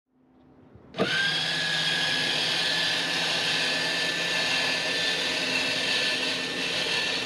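Motorhome's powered levelling jacks retracting: the jack motor starts about a second in with a quick rising whine, then runs steadily at a high pitch.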